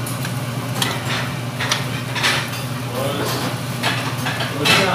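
Metal spatula scraping and clanking against a wok while noodles are stir-fried, about six irregular strokes, over a steady low hum.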